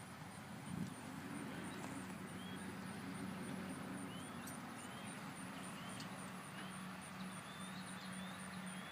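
A motor running with a steady low hum, with a brief thump about a second in and faint short chirps over it.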